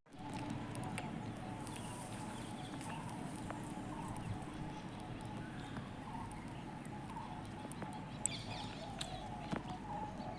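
Birds calling steadily over background ambience, with a few short high chirps near the end.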